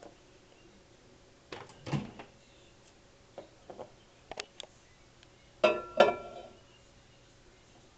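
Clunks and clicks from handling a microwave oven: two knocks about a second and a half in, a few light clicks around four seconds, and a louder double clunk about six seconds in.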